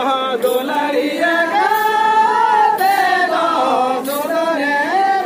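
A group of voices singing together unaccompanied, a Santali traditional song with long held, gliding notes.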